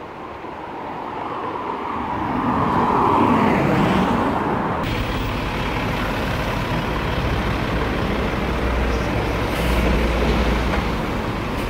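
Road traffic: a vehicle passes close by, loudest about three seconds in, its sound falling in pitch as it goes. After that a double-decker bus's engine runs with a steady low rumble.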